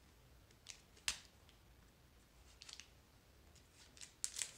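Faint, short snips of a hooked plastic safety cutter slicing along the edge of a cardboard mailer. A few separate cuts, the sharpest about a second in, and a quick cluster near the end.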